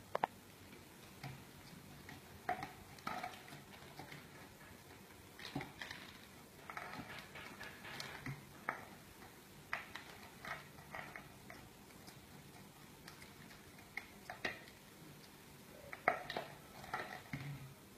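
Scattered light clicks, taps and crinkles from a baby handling a plastic bottle on a bamboo mat, with a few short squeaky sounds.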